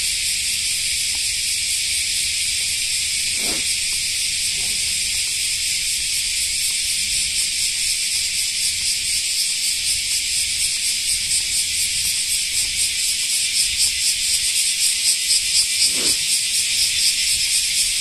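Chorus of cicadas: a loud, dense, high-pitched buzzing that swells into a pulsing rhythm in the second half.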